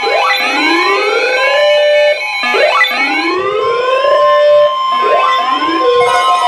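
Several weather alert radios going off at once for a flash flood warning. Siren-style alarms give about three rising wails, layered over steady beeping alert tones, and a strong steady alert tone takes over about four seconds in.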